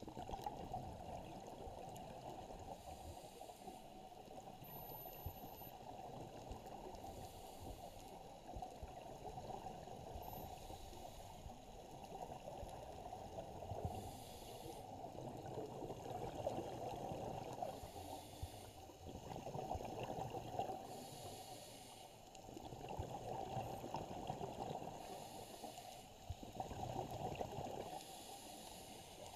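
Scuba diver breathing through a regulator underwater: a rush of exhaled bubbles every few seconds over a steady muffled underwater noise, heard through a camera's waterproof housing.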